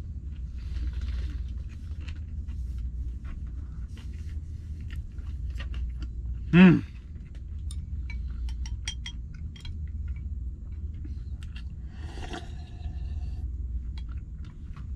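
Chopsticks clicking against a small glass bowl as its contents are stirred, many light ticks over a steady low hum. About halfway through a person gives a short hummed 'mm', and a brief mumble comes near the end.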